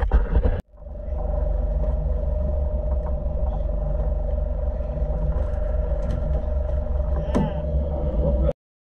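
Fishing boat's engine running steadily, a low rumble with a steady hum over it.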